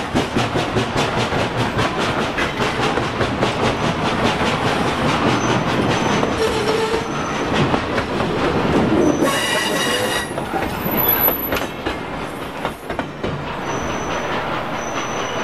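A steam locomotive passes close by, its exhaust chuffing in quick regular beats for the first few seconds. Its coaches and caboose then roll past with rail clatter, wheels squealing briefly and shrilly on the rails a few times.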